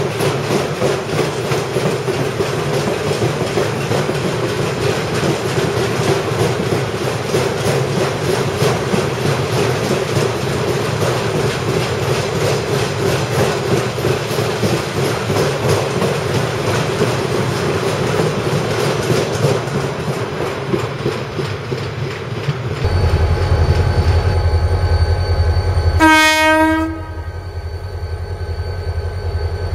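A car-carrier freight train rolling past, its wagons' wheels clattering and rumbling steadily over the rails. About 23 seconds in, this gives way to the low hum of a Renfe class 333 diesel locomotive's engine running, and a few seconds later the locomotive gives one short horn blast of about a second.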